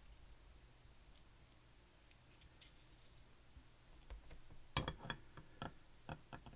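Small, sharp metal clicks and taps of an Assa Abloy hotel lock cylinder being taken apart with a follower and tools. A few faint ticks come first, then a quick run of louder clicks about five seconds in, the first of them the loudest.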